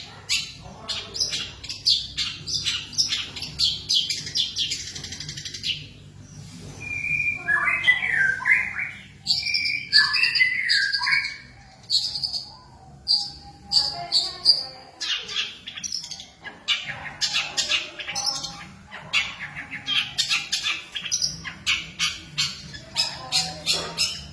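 Songbirds singing: quick runs of high, rapid chirps and trills, with a stretch of lower, sliding whistled notes about a third of the way in.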